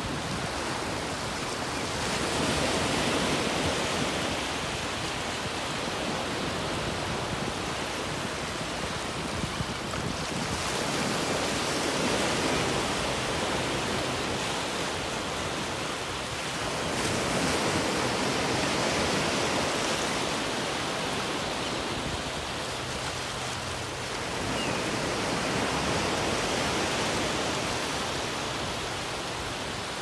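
Small ocean waves breaking and washing up a beach: a steady surf hiss that swells four times, about every seven to eight seconds, as each wave comes in.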